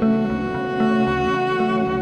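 Background music with sustained bowed-string-like notes over a steady low pulse.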